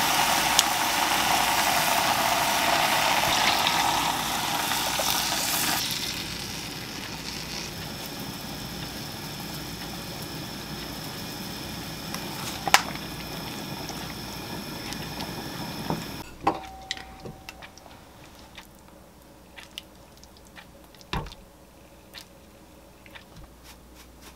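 Canned whole peeled tomatoes poured and squished into a pot of chopped vegetables and meat, over a loud steady noise that drops away about six seconds in. A quieter steady noise follows until about 16 seconds, then a few light clicks and taps of kitchenware.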